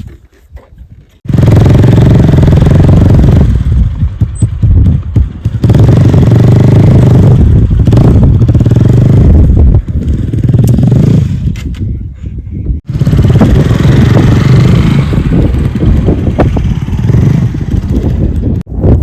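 Strong gusting wind buffeting the camera microphone: a loud, rumbling roar that starts and stops abruptly a few times.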